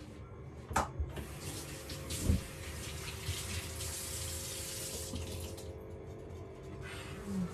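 Kitchen tap turned on about a second in, water running into a stainless-steel sink for about five seconds, then shut off; a dull knock partway through.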